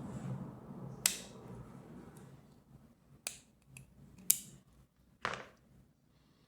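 Sharp metallic clicks and a short scrape as a tool pries the retaining ring off a compressed-air quick coupler, about five in all. A low hum fades out over the first couple of seconds.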